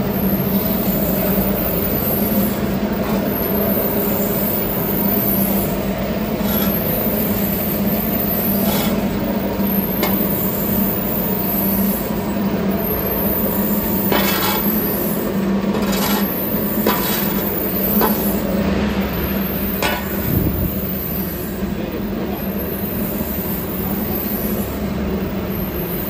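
Rotary drum carbonization furnace and its drive motors running with a steady hum. A shovel scrapes over concrete through a pile of freshly discharged charcoal several times, mostly in the middle.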